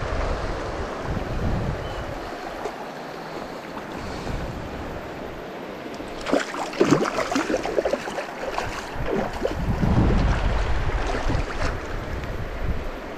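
Wind buffeting the microphone over the rush of river water. About halfway through there are a few seconds of splashing.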